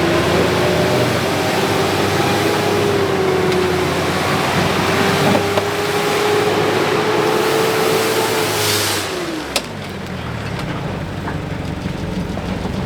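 A four-wheel-drive vehicle driving, with engine and road noise under a steady whine. About nine seconds in the whine falls in pitch and fades, and a sharp knock follows.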